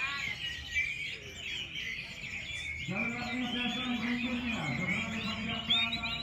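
Many caged orange-headed thrushes singing at once, a dense chorus of overlapping high warbling song. About halfway through, a steady low droning tone comes in under the birds and dips briefly before carrying on.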